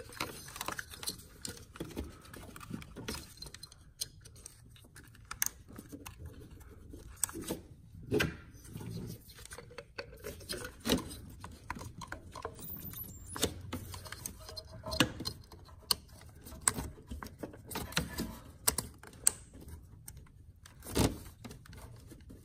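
Scattered small plastic clicks and knocks of ignition coils being seated and their wiring connectors pushed on and clicked home, locking tabs pressed in, with one sharper click near the end.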